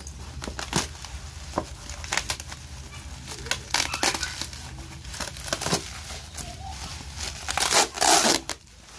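Bubble wrap crinkling and rustling in irregular crackles as it is handled and pulled off a cardboard box, with a louder, denser burst of crinkling near the end.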